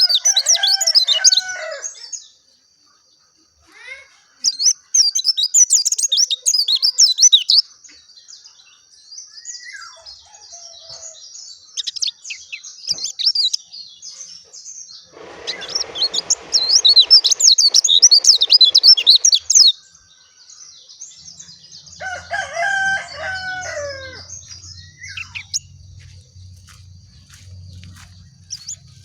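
Pleci dakun, a white-eye, singing: fast, high twittering in bouts of a few seconds with short gaps. A lower, drawn-out call sounds twice, once at the start and once a little past three-quarters of the way through.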